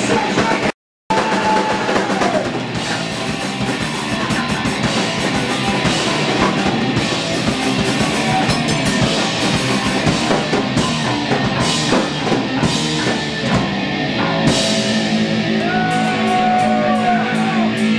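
Live punk rock band playing loud, with a pounding drum kit and distorted electric guitar. The sound cuts out completely for a moment about a second in. In the last few seconds long held notes ring out over crashing drum hits.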